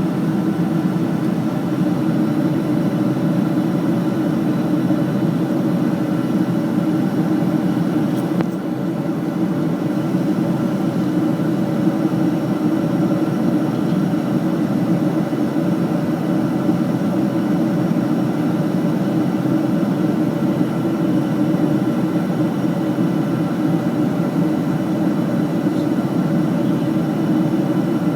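Steady drone of an airliner cabin in flight: jet engine and airflow noise, low and unbroken, with a brief dip about eight seconds in.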